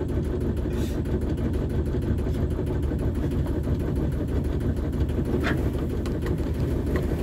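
Shipman 28 sailboat's auxiliary engine running steadily while motoring, a low even drone.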